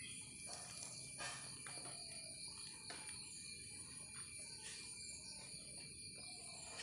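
Steady high-pitched trilling of insects, crickets or the like, in a continuous background chorus, with a few faint clicks about a second, three seconds and nearly five seconds in.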